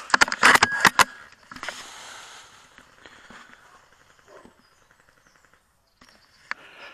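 A quick run of sharp clicks and clacks in the first second from the Tokyo Marui VSR-10 bolt-action airsoft rifle being handled and its bolt worked, then a brief rustle and a single click near the end.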